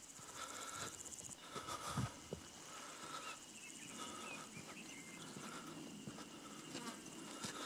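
Faint insects calling. A high buzzing trill lasts about the first second and a half, and a short, higher call repeats about once a second throughout. A few soft footsteps on the dirt path come about two seconds in.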